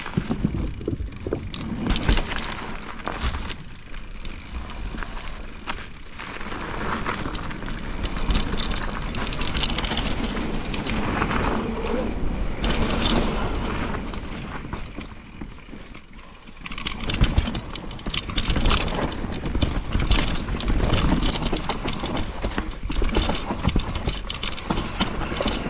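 Mountain bike ridden down a wet trail: a rush of wind and tyres on wet dirt that swells and fades with speed, broken by many sharp knocks and rattles from the bike over roots and bumps.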